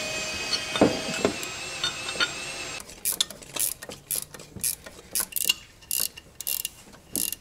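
A few light metal clinks, then from about three seconds in a hand ratchet wrench clicking in repeated short strokes, a few a second, as a bolt is run in on a steel engine mount plate.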